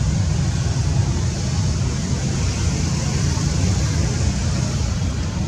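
Steady low rumble with a fainter hiss above it: outdoor background noise, with no distinct event.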